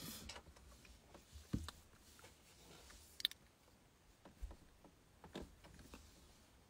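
Near silence: faint room tone with scattered small clicks and rustles of a phone being handled, the sharpest click about three seconds in.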